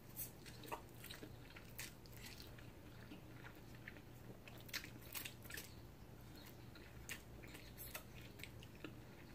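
A person eating a mouthful of spicy instant noodles with cheese, reheated and a little hard: faint chewing with small wet mouth clicks scattered throughout, over a low steady hum.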